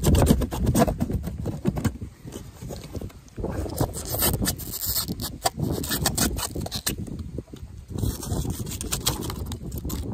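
Putty knife scraping and chipping crumbly debris off the damaged roof of a pop-up camper, in quick, irregular strokes.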